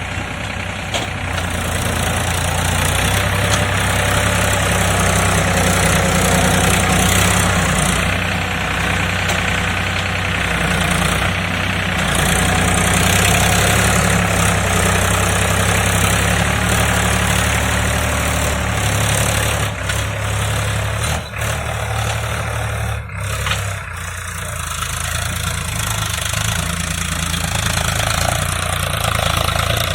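Farm tractor engine running steadily with a low drone, the level dipping briefly twice about two-thirds of the way through.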